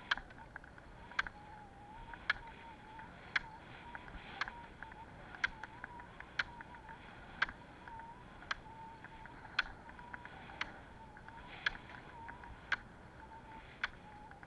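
Roller ski pole tips striking asphalt in a steady rhythm, a sharp click about once a second, some strokes doubled, over a faint, steady, wavering hum from the rolling skis.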